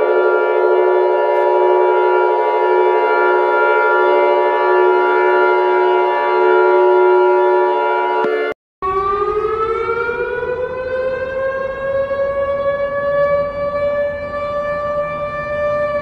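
Mock emergency-alert alarm: a steady electronic chord of several tones held together for about eight seconds, then cut off suddenly. After a brief break a siren winds up, rising slowly in pitch and levelling off over a rushing noise.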